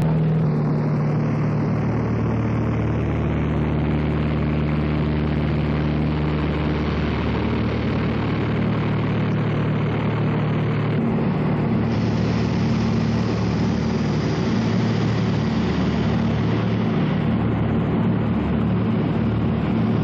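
A light high-wing plane's engine and propeller running steadily, heard inside the cabin: several steady low tones under a wide hiss.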